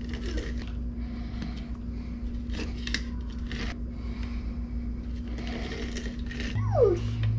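Halved limes being twisted and ground on a plastic hand citrus juicer: a run of irregular scraping and clicking. A short falling squeak comes near the end.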